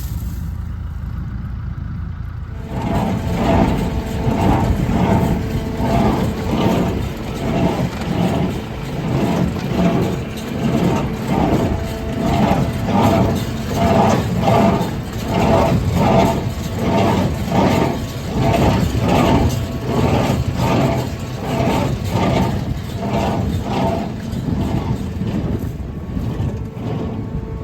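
Tractor engine running steadily while a Massey Ferguson 1840 in-line small square baler works, its plunger beating in an even rhythm that comes in about two and a half seconds in.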